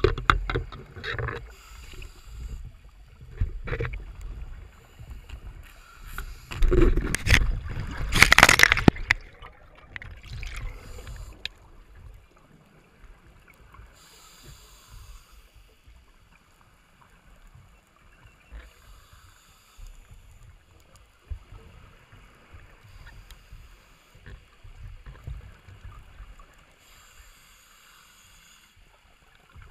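Water rushing and knocking against an underwater camera housing as a spearfishing diver swims with fins, loudest between about 6 and 9 seconds in, then settling to a quieter wash with faint recurring hiss.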